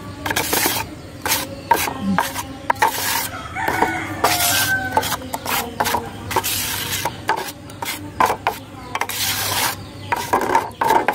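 Metal knife blade scraping and stirring wet white cement paste against the sides of a steel bowl, in quick irregular strokes, as the cement and water are mixed into a paste.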